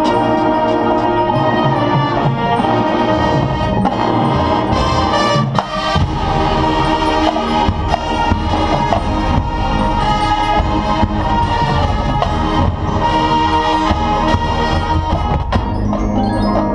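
A summer marching band playing its field show: brass and percussion together, with mallet keyboards in the mix, loud and continuous.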